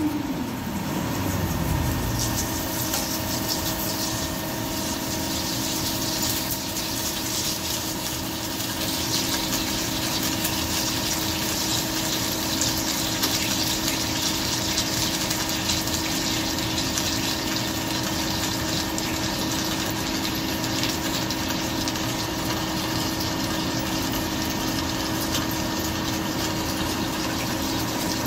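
CNC vertical turning lathe cutting a large metal ring under flood coolant: a steady machine hum with the hiss and splash of coolant and flying chips. A whine falls sharply in pitch during the first two seconds, then the sound holds steady.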